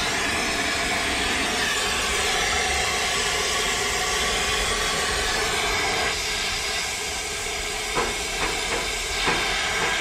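Oxy-acetylene torch flame hissing steadily as it heats sil-fos brazing rod, with a few light ticks near the end.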